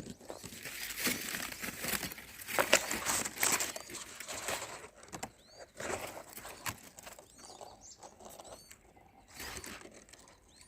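Irregular rustling, scraping and crackling as a nest and its surroundings are handled, with a few short, high, chirps from small birds about halfway through and again later.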